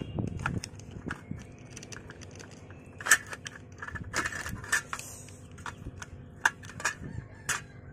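Kitchen shears cutting through a boiled duck's bones and joints: a run of irregular crunches and sharp snaps, the loudest about three seconds in.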